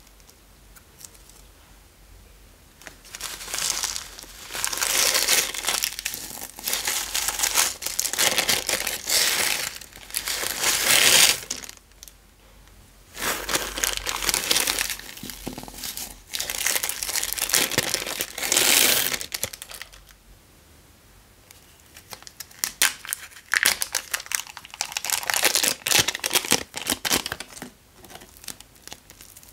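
Thin plastic bags crinkling and tearing as hands open them and squeeze out beads and clay, in three long spells of rustling with short quiet gaps between.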